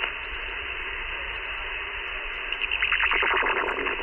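Icom IC-7200 shortwave transceiver's speaker hissing with steady band noise while listening between calls. The noise rises and crackles about three seconds in.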